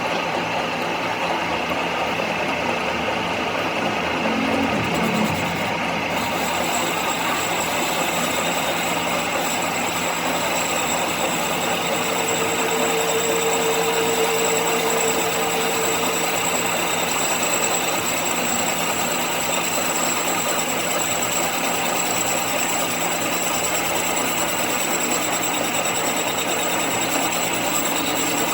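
A workshop machine tool running steadily. A thin high-pitched whine joins in about six seconds in.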